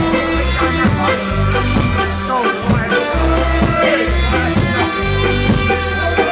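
Live reggae band playing an instrumental stretch of a song, with a steady bass line repeating under guitar and drums.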